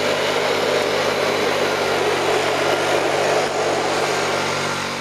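ATV engine running at steady revs as the quad drives off over gravel, with a rushing noise under it, fading slightly near the end as it moves away.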